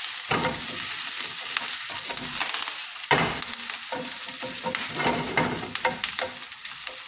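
Garlic, ginger, green chilli and curry leaves sizzling in hot olive oil in a non-stick frying pan over very high heat, stirred with a wooden spatula that scrapes and taps against the pan.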